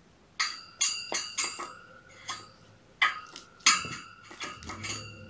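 Light metallic clinks, each ringing briefly on the same bright note, coming in quick irregular runs of three or four, about a dozen in all.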